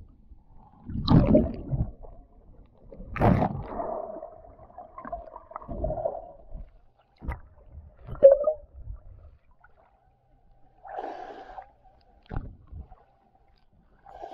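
Muffled underwater sound picked up by a DJI Osmo Action camera submerged in a swimming pool: irregular thumps and sloshing of water against the camera, a second or two apart, the loudest about eight seconds in, with a faint steady tone coming and going between them.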